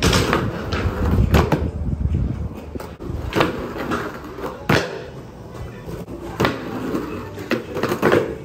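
Skateboards rolling on skate park concrete, a low rumble of wheels broken by several sharp clacks of decks and tails hitting the ground.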